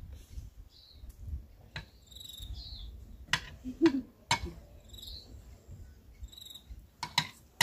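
A fork and spoon clinking and scraping against a plate of food: a few sharp clicks, loudest about three to four and a half seconds in and again near the end. Short high chirps repeat faintly in the background every second or so.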